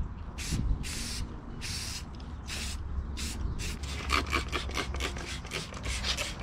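Rubbing strokes of a cloth or pad worked back and forth over a surface. Slow, spaced strokes at first, then a quick run of short strokes from about four seconds in.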